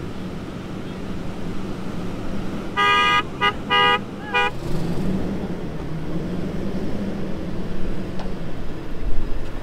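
A vehicle horn toots four times in quick succession about three seconds in, in a long-short-long-short pattern. Under it a pickup truck's engine runs steadily as it pulls through soft sand, and the engine note grows louder just after the honks.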